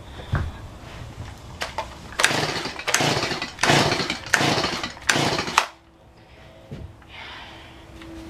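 Stihl MS170 chainsaw's recoil starter yanked about five times in quick succession, the two-stroke engine turning over with each pull but not catching. It is a saw that still won't start after a new carburetor and other parts.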